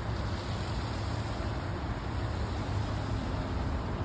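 Wind buffeting a phone microphone outdoors: a steady low rumble with a constant hiss over it.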